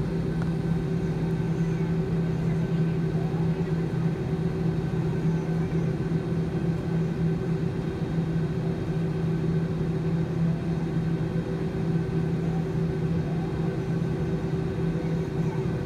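Airliner's jet engines and cabin noise heard from inside the cabin as the plane taxis after landing: a steady drone with a low hum and no change in pitch.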